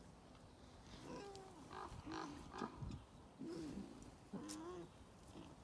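Wild boar giving a run of short pitched calls that rise and fall, about six over four seconds.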